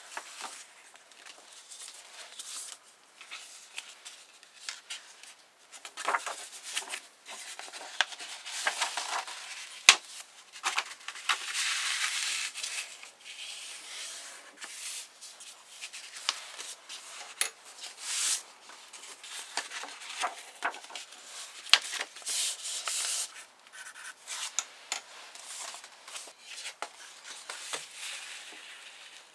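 Sheets of paper rustling and sliding as folded book sections are handled, stacked and creased flat by hand, in irregular bursts with occasional light taps and ticks.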